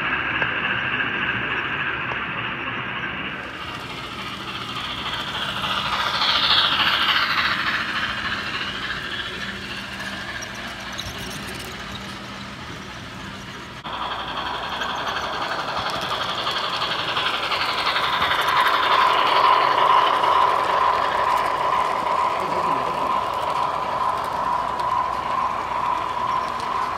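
Model trains running on layout track, their wheels rolling over the rails as a freight train with a caboose passes. After a change of shot, a second train draws near with a steady whine that comes in about two-thirds of the way through and holds.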